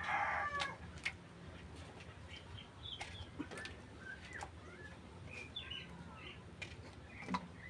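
The tail of a rooster's crow fades out in the first half second. Scattered faint bird chirps and short whistled glides follow, with a few sharp clicks.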